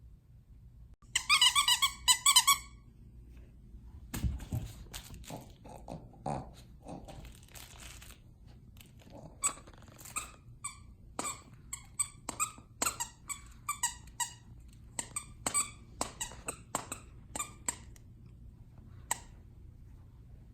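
A dog chewing a squeaky plush snowman toy. A quick, loud burst of squeaks comes about a second in, then crinkling and rustling, then a long run of short single squeaks, one or two a second.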